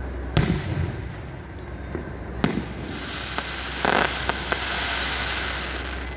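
Aerial firework shells bursting: a sharp bang about half a second in and another about two seconds later. Then a long, hissing crackle with scattered pops runs from about three seconds in until near the end.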